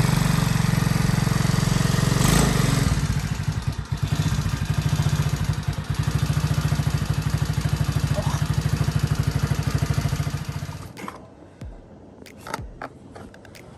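110cc ATV's single-cylinder four-stroke engine idling steadily, running again on a newly fitted carburetor. The engine sound cuts off about eleven seconds in, followed by a few faint knocks.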